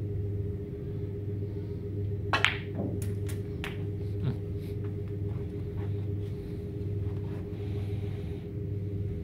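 Snooker shot: a loud sharp click of the cue striking the ball about two and a half seconds in, followed by several lighter clicks of balls knocking together over the next few seconds. Under it is a steady low hum.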